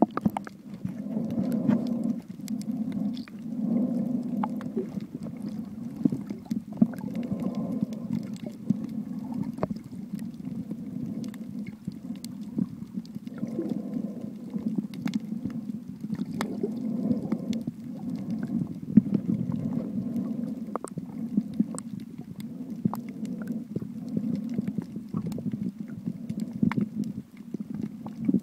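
Underwater sound picked up by a submerged camera in shallow sea water: a muffled low rumble of moving water that swells and fades every couple of seconds, with scattered sharp clicks throughout.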